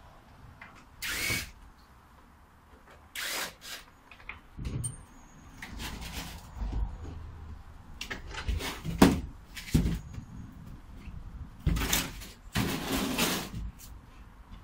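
A cordless drill-driver runs in short bursts, backing out the screws that hold a wooden fence panel to the post. In between, the panel knocks and scrapes as it is worked free and moved.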